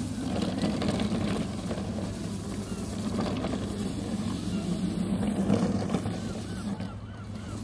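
Six-wheel rover on brushless hoverboard hub motors driving fast across sand, heard from a distance as a steady low hum under outdoor noise, the motors being run with field weakening for extra speed. Birds call faintly in short repeated notes, mostly near the end.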